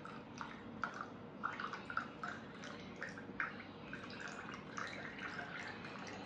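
Water dripping: irregular small drops, several a second, over a faint steady hiss.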